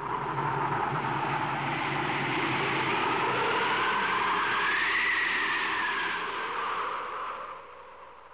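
Howling wind of a blizzard, a film sound effect. It swells in and holds, with a whistling tone rising and then falling in pitch about midway, and fades away near the end.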